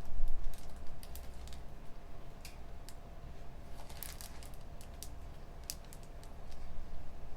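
Computer keyboard being typed on: irregular key clicks at uneven spacing over a low, steady room hum, with a low bump about a quarter second in.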